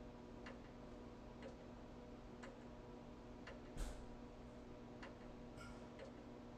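Faint ticking, one click about every second, over a steady low hum, with one louder knock about four seconds in.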